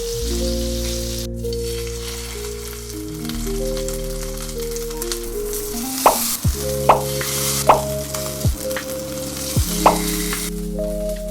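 Salmon sizzling in a frying pan, a steady hiss that grows stronger partway through, under soft background music. A few sharp plinks that fall in pitch sound between about six and ten seconds in.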